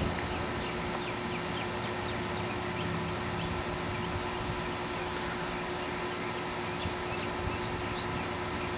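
Outdoor street ambience: a steady hum with faint, high, short chirps scattered through it.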